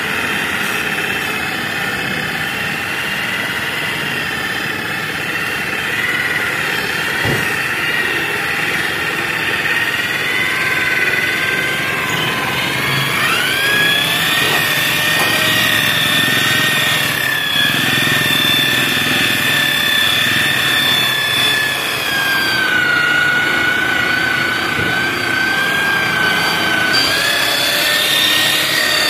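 Electric angle grinder with a foam polishing pad running steadily as it buffs polish on a plastic headlight lens. Its whine rises in pitch about 13 seconds in, dips around 22 seconds, and rises again near the end.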